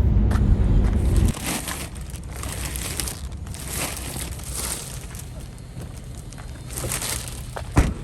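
A car's low running rumble stops about a second in, followed by repeated crinkling and rustling of plastic shopping bags being handled, and a sharp click near the end.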